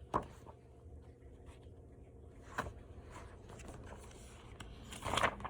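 Paper pages of a book being handled, with a couple of soft taps and a brief rustle near the end, over a faint low hum.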